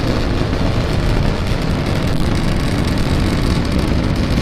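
Starship SN10's three Raptor rocket engines roaring during ascent: a loud, steady, even rumble with no breaks.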